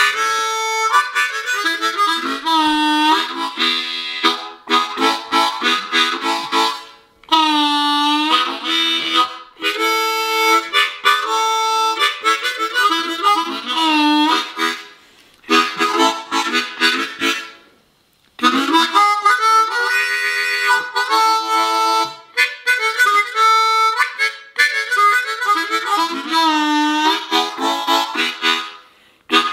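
Harmonica played solo: chords and single notes with bent notes that dip and return in pitch, in phrases broken by short pauses, one near the middle and two a little later.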